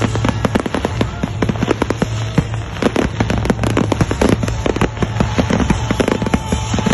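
Fireworks display: a dense, continuous run of sharp bangs and crackles from exploding shells, several a second, over a steady low rumble.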